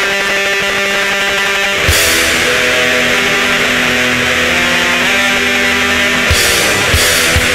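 Experimental black metal track: electric guitar notes, then about two seconds in the full band comes in louder with a held chord, and a beat of low hits starts near the end.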